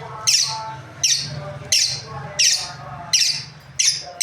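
Lovebirds calling: a shrill call that starts sharply and fades quickly, repeated at an even pace about six times, over a steady low hum.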